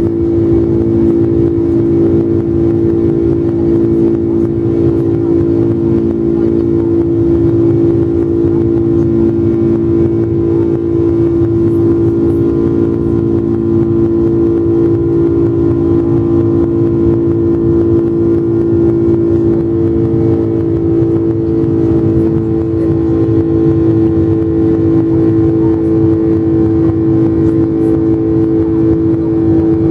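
Boeing 747 jet engines running with a loud, steady drone: several held tones over a low rumble, with no rise or fall in pitch.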